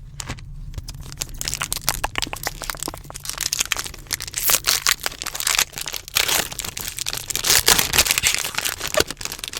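Plastic foil trading-card pack wrapper crinkling and crackling in dense irregular bursts as it is handled and opened, loudest about four to five seconds in and again near eight seconds.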